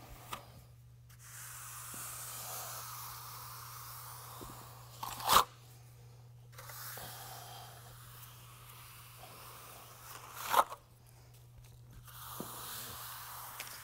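Steel finishing trowel scraping across freshly laid trowel-grade urethane concrete under heavy pressure, in three long strokes with pauses between. Two sharp clicks come about five and ten and a half seconds in.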